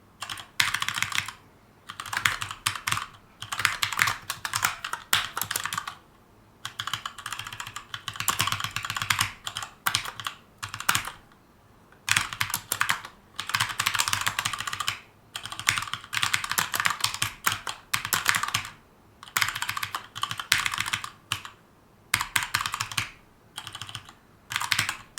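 Typing on a Keychron K2 mechanical keyboard with brown tactile switches: rapid runs of key clicks and clacks in bursts of a second or two, broken by short pauses.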